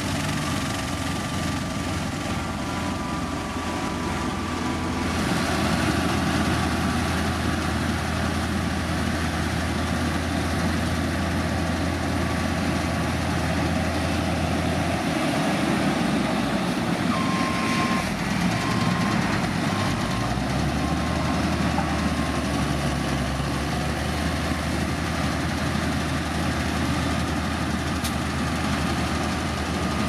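Heavy diesel construction machinery running steadily, with a deep engine hum and mechanical noise over it. The engine note shifts about halfway through, then settles again.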